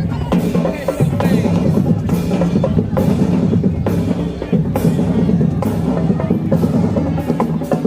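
High school marching band playing: a dense low brass sound over drumline percussion, with steady bass drum and drum hits on the beat.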